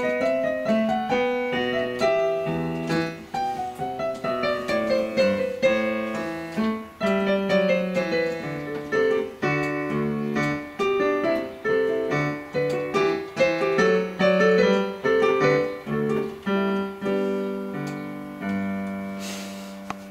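Digital piano playing a simple practice piece: a melody over a left-hand bass line, ending near the end on a held chord that dies away.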